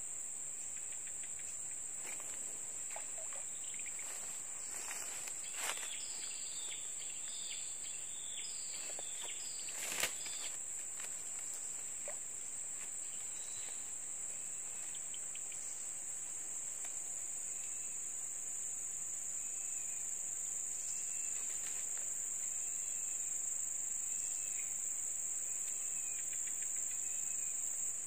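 Steady high-pitched drone of an insect chorus, with one sharp click about ten seconds in and a run of short repeated chirps in the second half.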